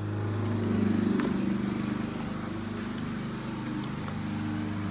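Lawn mower engine running steadily, a low hum that swells about a second in, with a few faint clicks.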